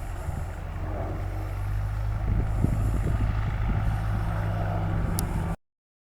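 Hawker Hurricane's Rolls-Royce Merlin V12 engine running at a low, steady speed with an uneven crackle. The sound cuts off abruptly to dead silence about five and a half seconds in.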